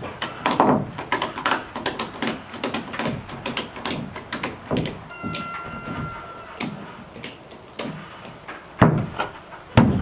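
Ratchet strap being cranked to pull a rough sawn board up against the ceiling joists: a run of sharp, irregular clicks and knocks, about three or four a second, then two loud knocks near the end.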